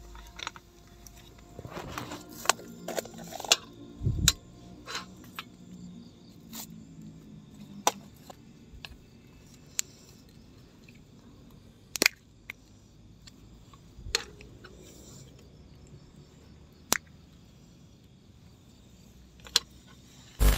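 Cutlery clicking and clinking against a small frying pan and plate as fried sausages are cut and handled: about ten separate sharp taps, spread out.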